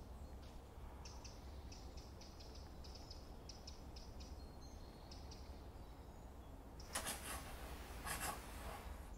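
Faint woodland ambience with scattered short, high bird chirps, then two short scratchy rubbing noises about a second apart near the end.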